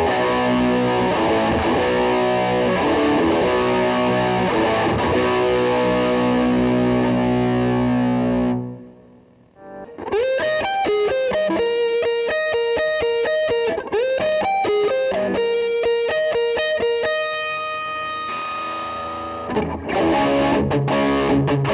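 Electric guitar, a Gibson Les Paul Custom copy fitted with replacement pickups, played through distortion. Heavy sustained chords last about eight seconds and stop, followed after a short pause by a single-note lead line with bent notes, then dense chords again near the end.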